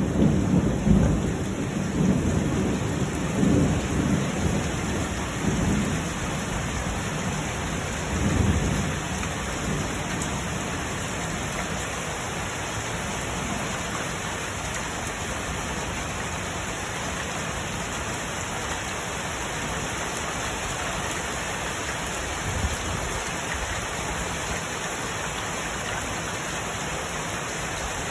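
Steady rain with thunder rumbling. The rumble swells several times in the first few seconds, fades after about nine seconds, and leaves the even hiss of rain.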